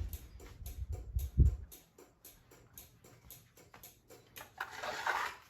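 Garage door opener running the door, with a low rumble and a thud about a second and a half in, then a steady rapid ticking, about four ticks a second.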